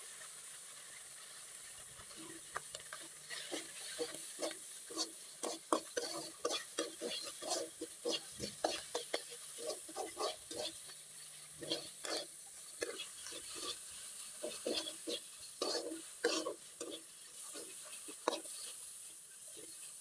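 Metal spatula stirring and scraping small shrimp and ground spices around a wok in a series of quick, uneven strokes that begin about two seconds in, over a steady sizzle of frying oil.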